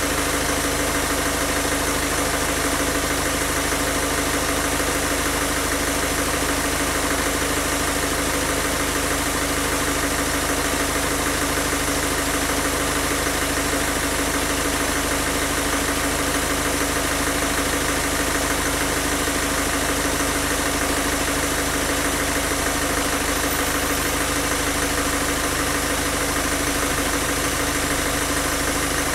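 Peugeot 1.6 HDi four-cylinder turbodiesel idling steadily while it draws injection-system cleaner from a bottle. It runs with no injector tick, a sign that the cleaner is working through and clearing the injectors.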